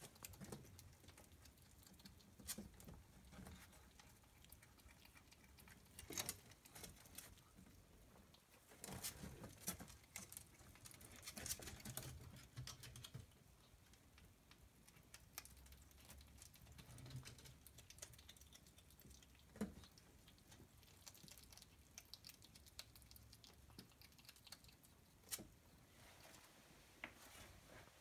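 Faint, scattered clicks, taps and rustles of ferrets moving and feeding in a wooden hutch, some in short clusters a few seconds apart.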